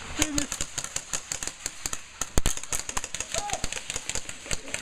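Airsoft rifles firing in rapid, irregular shots, several at once, with one sharper, louder crack about halfway through.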